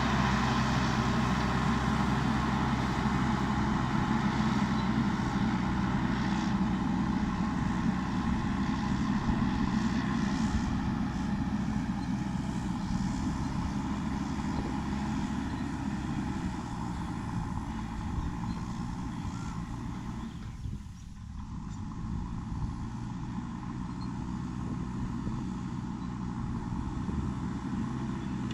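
JCB backhoe loader's diesel engine running steadily, with a brief drop in level about three-quarters of the way through.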